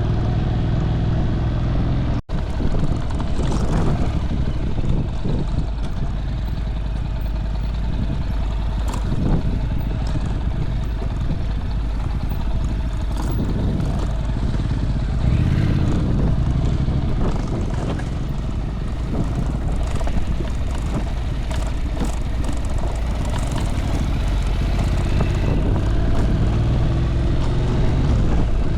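Motorbike running along the road: steady engine and road noise, with a brief break in the sound about two seconds in.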